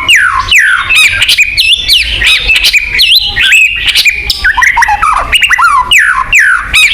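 White-rumped shama (murai batu) singing vigorously: a rapid, unbroken run of varied whistled notes sweeping up and down, mixed with sharp clicks.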